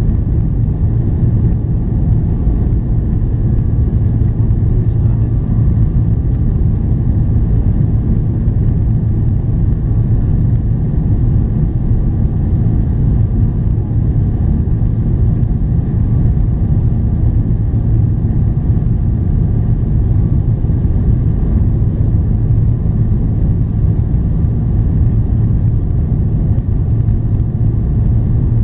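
Steady cabin noise of a Boeing 777-300ER climbing after takeoff, heard inside the cabin at a window seat: a constant low drone of its GE90 engines and rushing air, with a few faint steady tones above it.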